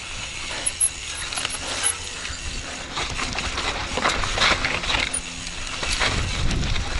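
Mountain bike descending a steep, loose, rutted dirt trail: tyres rolling over dirt and loose rock, with the bike rattling and clicking irregularly over the bumps.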